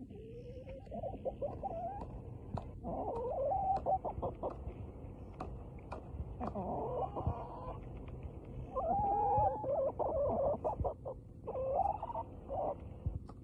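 Domestic hen making drawn-out, wavering calls in five phrases that rise and fall in pitch, with sharp clicks between them.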